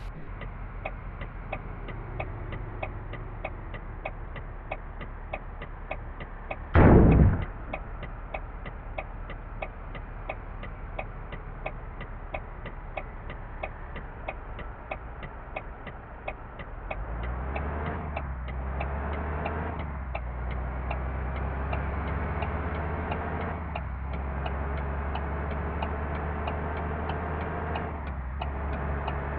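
Bus turn-signal indicator clicking steadily, about two to three clicks a second, heard inside the bus. About seven seconds in there is a short, loud burst of hiss. Past the middle, the bus's engine drone grows louder as it pulls away, dipping briefly a few times.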